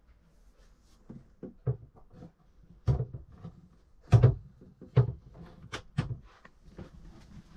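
Bathroom wall cabinet and fittings being handled in a small motorhome washroom: a run of light knocks and clicks of doors and latches, the loudest just after four seconds in.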